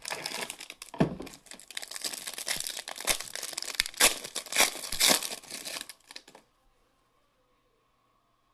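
Foil wrapper of an Upper Deck Premier hockey card pack crinkling and being torn open by hand: a run of crackling and ripping that stops about six seconds in.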